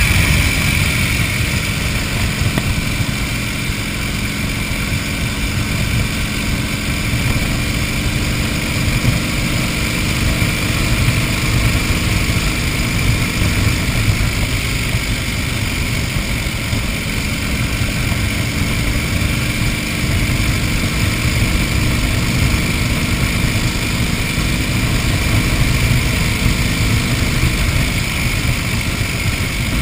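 1931 Indian 101 Scout's flathead V-twin engine running steadily under way on the road, heard from a camera mounted on the motorcycle.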